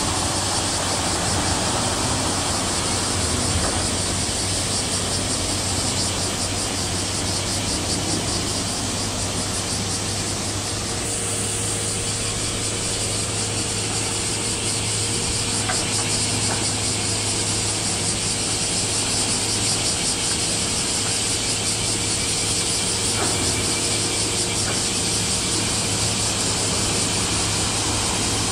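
Large car carrier passing close: a steady low hum of its machinery under a constant broad hiss, with a faint steady tone joining about a third of the way through.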